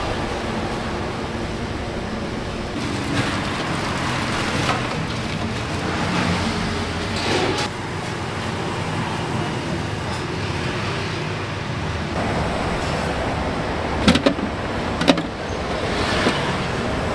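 Steady street traffic noise, with two sharp knocks about fourteen and fifteen seconds in.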